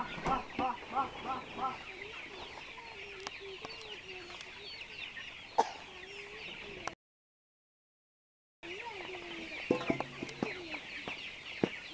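A flock of Giriraja chickens clucking and peeping, a dense chatter of short high calls with a quick run of about six clucks in the first second and a half. The sound cuts out completely for about a second and a half a little after the middle.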